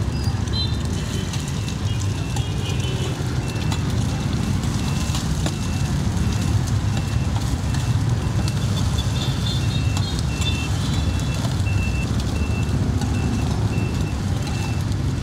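Rice-flour cake cubes and eggs sizzling on a large flat iron griddle, with a metal spatula scraping and turning them, over a steady low rumble of street traffic. A high beep repeats about twice a second through most of it.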